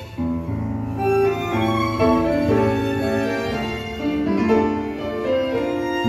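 Argentine tango music: a violin playing a melody of held notes over piano and low bowed strings.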